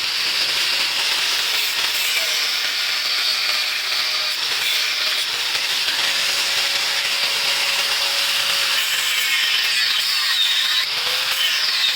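Angle grinder cutting through the rust-seized bolts and exhaust at a car's catalytic converter: a steady, high-pitched cutting noise that holds level throughout.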